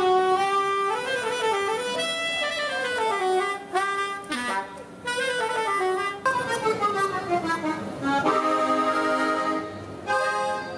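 Saxophone playing a gliding melodic phrase with short pauses during a norteño band's soundcheck. From about eight seconds in, a button accordion joins with several held notes sounding together.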